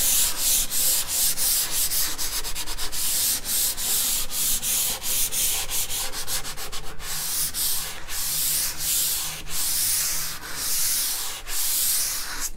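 Light-grit sanding block rubbed back and forth by hand over dried spackle on a melamine-coated cabinet panel: a run of quick, scratchy strokes. It is flattening the filled holes and scuffing the melamine.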